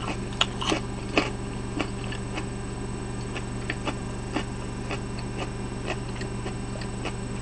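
Close-up crunchy chewing of raw kohlrabi: irregular crisp crunches, more frequent in the first two seconds, then sparser, over a steady low electrical hum.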